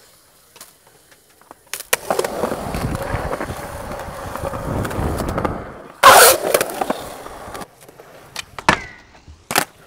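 Skateboard wheels rolling on concrete, with one loud clack of the board striking the ground about six seconds in. A few sharp clicks of the board follow near the end.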